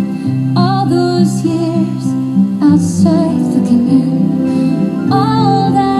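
Slow music from the fireworks show's soundtrack: long held notes over a steady bass, with a wavering melody line coming in about half a second in and again near the end.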